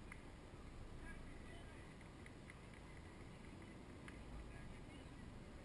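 Faint outdoor ambience: a low steady rumble of wind on the microphone with faint, distant voices.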